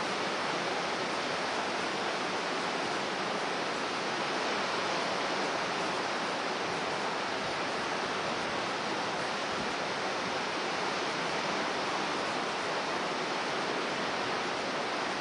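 Heavy storm surf breaking and churning against rocks: a steady, even wash of noise with no single wave standing out.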